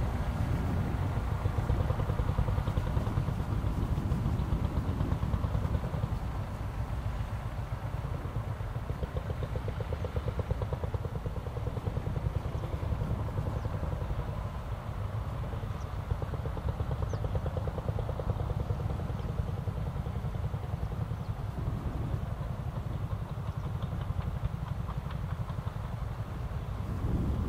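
Steady low motor drone with a rapid fine throb, a little louder in the first six seconds.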